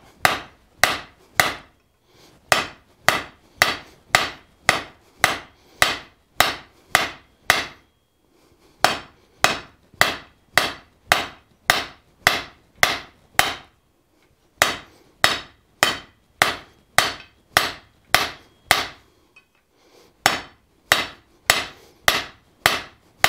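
Hand hammer striking a hot bar of S7 tool steel on an anvil: ringing blows at about two a second, in runs broken by short pauses every few seconds.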